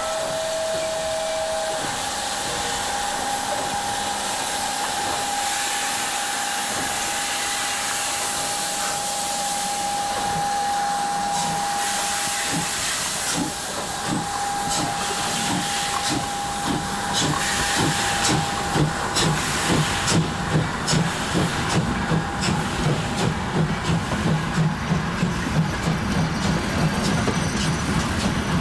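DB class 64 two-cylinder steam tank locomotive 64 419 hissing steam as it stands, with a thin steady tone under the hiss, then starting away: slow exhaust chuffs begin about twelve seconds in and quicken and grow louder as it pulls its train away.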